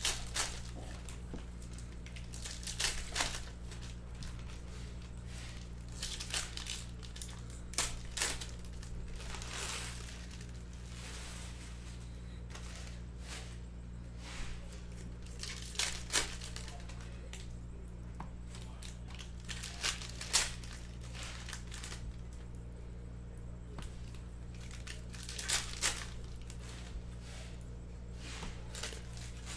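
Trading-card pack wrappers being torn open and crinkled, in short crisp bursts every few seconds.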